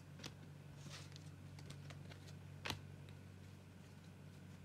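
Faint taps and clicks of Topps Turbo Attax F1 trading cards being handled and set down, a few scattered ticks with one slightly louder about two-thirds of the way in, over a steady low hum.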